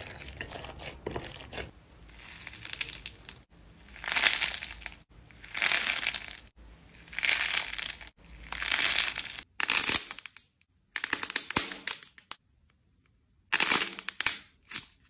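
Slime being pressed and squeezed by hand, giving crackling, crunching sounds in a run of separate bursts. Fine crackles come first, then four slower swells about a second and a half apart, then sharper crackling bursts with short pauses.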